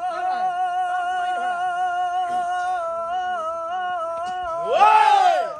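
Bihu music: one long held melody note, reedy and wavering in small pitch steps, with no drumming under it. About five seconds in it breaks into a louder swoop that rises and falls.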